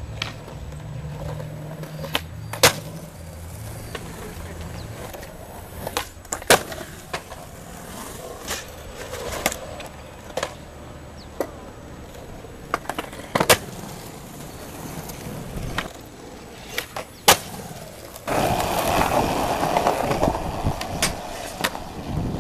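Skateboards on concrete: wheels rolling, with about a dozen sharp clacks of decks popping, landing and slapping down. A louder, steady rolling rumble comes in near the end.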